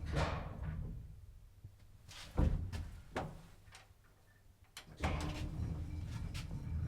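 Graham elevator's sliding door and lock mechanism working: a door swish at the start, then a loud clunk and several sharper clicks while the low machine hum is off. About five seconds in, the elevator's steady low hum starts again.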